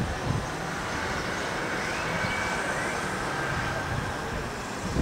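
Steady urban background noise, a continuous hum of distant city traffic.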